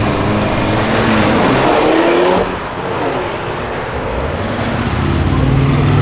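Car engines and traffic noise: a car accelerating, its engine note rising until an abrupt change about two and a half seconds in, then steady engine noise that grows louder toward the end.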